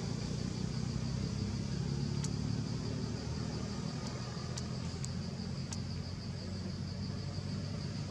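Steady low mechanical rumble, like a motor running at a distance. A few faint short high ticks come in the middle.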